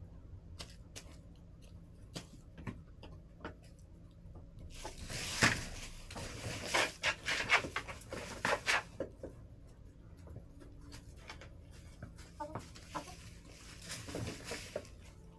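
Hens pecking and scratching in the coop: scattered sharp taps, then a busier run of rapid taps and rustling about five seconds in that lasts around four seconds.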